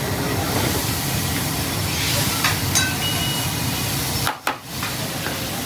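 Fish frying in hot oil: a steady sizzling hiss with a few light clicks and clatters, cutting out briefly about four seconds in.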